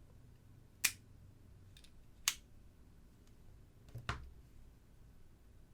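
Three sharp snapping clicks about a second and a half apart from a hand wire stripper being squeezed on wire, the last one doubled.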